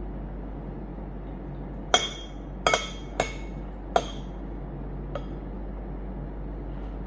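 Metal cutlery clinking against a bowl as food is scooped up: four sharp ringing clinks in about two seconds, then a fainter one, over a steady low room hum.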